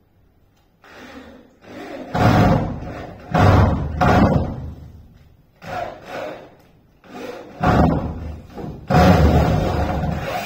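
About ten heavy knocks on wooden door panelling, coming irregularly in twos and threes, each dying away over about half a second.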